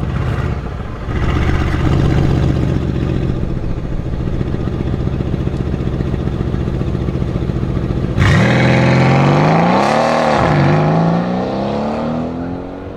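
Mercedes-AMG C63 S Estate's twin-turbo V8 running at steady revs at the start line, then launching hard about eight seconds in: a sudden loud burst of rising engine pitch, a drop at an upshift, then rising again as it accelerates away and fades.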